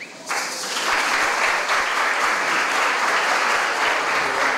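Audience applauding in a hall. The clapping starts a moment in and builds within about a second to a steady, dense applause.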